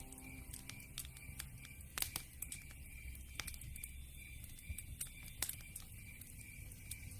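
Wood fire crackling: many small irregular ticks with louder pops about two, three and a half and five and a half seconds in, over a low rumble.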